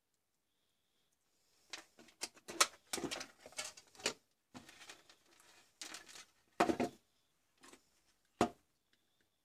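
Handling noise on a workbench: an irregular run of clicks, taps and rustles as test leads and a cable are moved and a plastic plug-in charger is picked up. The sharpest knocks come a little after a third of the way in and near the end.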